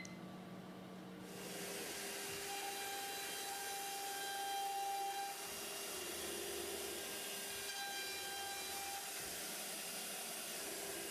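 AXYZ CNC router running: a steady hiss that starts about a second in, with a few whining tones that shift and drop out now and then as the spindle heads move over the aluminium composite panel.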